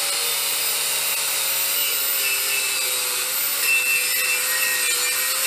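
Corded angle grinder with a wire cup brush running against steel, stripping paint off the weld areas of an axle housing and truss. It makes a steady motor whine over a rasping hiss.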